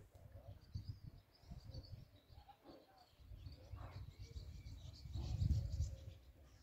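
Outdoor harbour ambience: faint bird chirps over uneven low rumbling on the microphone, which is strongest about five seconds in.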